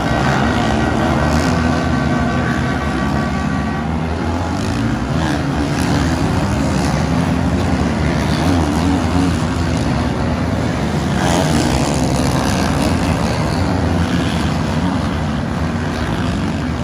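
A pack of motocross bikes running through a corner, several engines revving at once, their pitch rising and falling as the riders get on and off the throttle.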